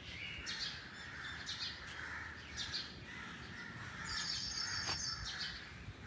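Birds calling, a string of short chirps over faint background hum, with a higher trilling song about four seconds in.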